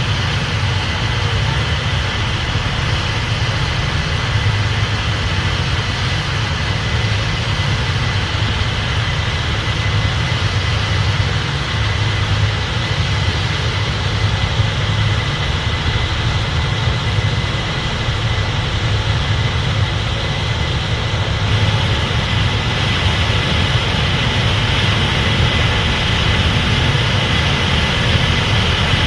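Case IH 8250 Axial-Flow combine running steadily while harvesting corn: a deep engine and machinery hum with a thin, steady high whine over it.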